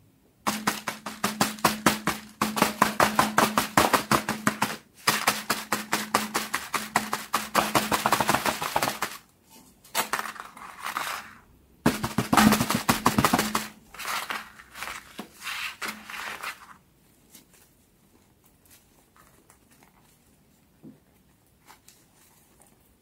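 Silicone pop-it fidget toy with its bubbles pressed in quick succession: long runs of rapid popping clicks in several bursts with short pauses between them, stopping about two-thirds of the way through.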